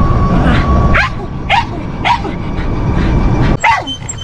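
A dog barking and yipping in short, sharp calls that drop in pitch, about four of them, over a low rumble that falls away about three and a half seconds in.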